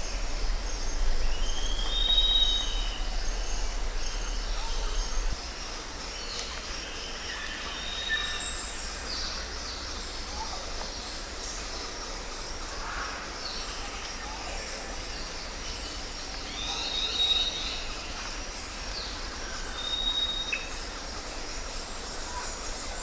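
Jungle ambience: a steady high insect chorus with scattered bird calls, including short whistles, a rising call and one louder chirp about eight seconds in. A low rumble underneath cuts off suddenly about five seconds in.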